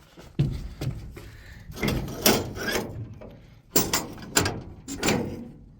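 A run of about ten irregular knocks and bangs, a few of them louder, like hard objects or panels being struck or worked.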